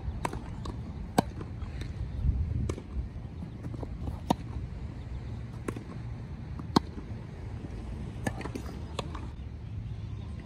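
Tennis racquets striking the ball back and forth in a rally on a grass court: a string of sharp pops roughly every second or so, the loudest about two-thirds of the way through, over a low rumble.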